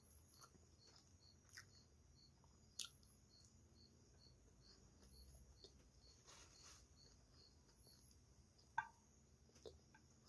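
Near silence: faint chewing and mouth sounds of someone eating, with a few soft clicks, the sharpest about three seconds in and near the end. A faint high chirp repeats evenly about three times a second underneath.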